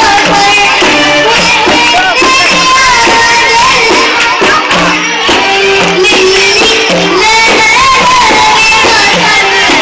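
A schoolgirl singing an Arabic song, her voice wavering with vibrato, over an instrumental backing track with a steady percussion beat.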